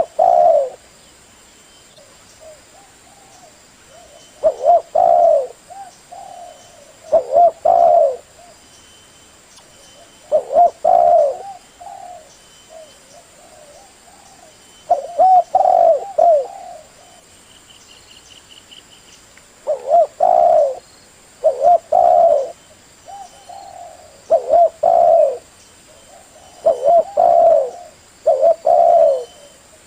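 Spotted dove (tekukur) cooing: short phrases of two or three low, mellow coos, repeated every few seconds. This is the male's song, used to lure other doves.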